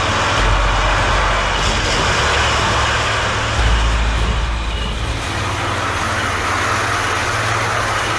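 Road vehicle sound: engines running with a steady rushing road noise over a deep hum.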